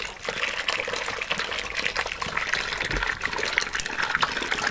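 A thick liquid mixture gushing steadily from a basin into a wide pan of hot grape must, splashing as it fills, with small crackles throughout.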